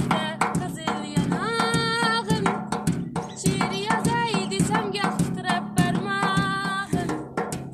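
A girl singing an Uzbek song, holding long wavering notes, over a backing track with a steady drum beat and plucked strings.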